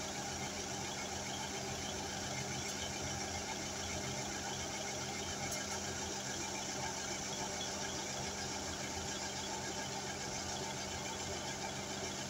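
Two coupled Class 159 diesel multiple units standing with their underfloor Cummins diesel engines idling: a steady, even hum that does not change.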